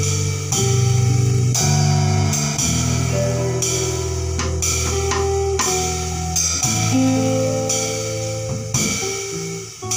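Live band playing: hollow-body archtop electric guitar over sustained bass guitar notes, with a drum kit keeping time on cymbals and drums.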